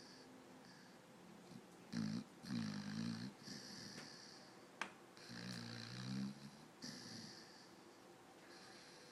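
A sleeping dog snoring: a few low snoring breaths, a couple of seconds apart, with a single sharp click about halfway through.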